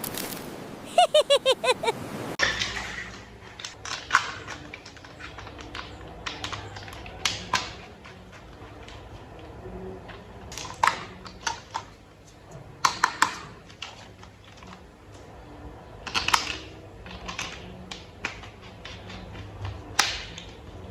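Hard plastic toy parts clicking, tapping and snapping together as they are handled and fitted, in irregular clusters with a few louder snaps, over a low steady hum. A quick run of short pitched chirps comes about a second in.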